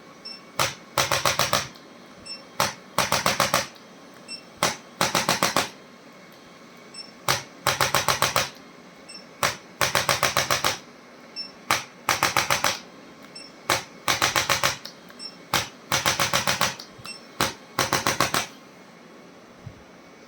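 Chiropractic adjusting instrument firing rapid clicking thrusts in eight rounds about two seconds apart, each a single click followed by a burst of quick clicks lasting under a second.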